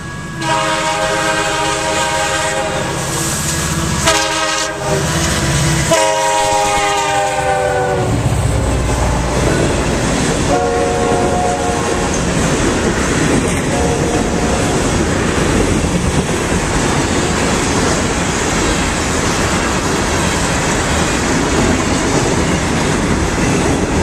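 Freight locomotive's air horn sounding two long blasts, the second dropping in pitch as the engine goes by, then two short blasts, followed by the steady rolling noise of loaded tank cars' wheels on the rails as the train passes.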